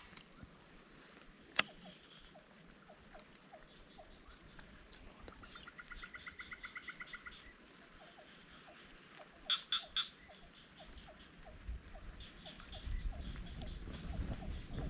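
Frogs calling with short croaks repeated a few times a second, over a steady high insect drone. About six seconds in comes a quick run of rapid pulsed calls, and around ten seconds in three sharper calls.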